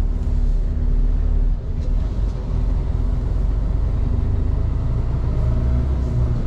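Heavy truck's diesel engine running under load as the truck creeps over a rough, uneven road, heard from the cab as a steady low rumble with an even engine hum. The loudness dips briefly about two seconds in.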